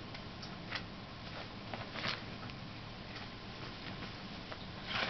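Six-week-old Bengal kittens playing: irregular light taps and scuffs of small paws, the loudest about two seconds in and near the end, over a steady background hiss.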